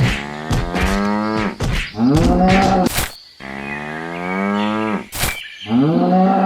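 Repeated long animal calls, about five in a row, each about a second long and sliding in pitch, with a few sharp clicks between them.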